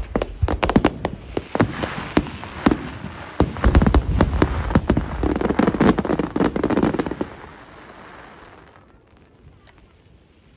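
Aerial fireworks in a high-altitude show: shells bursting in quick succession with heavy crackling and deep booms. The barrage dies away about seven seconds in, leaving faint scattered crackles.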